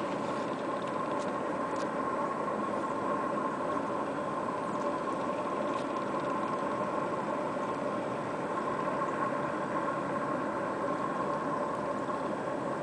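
A steady engine hum with a constant tone running through it, not rising or falling.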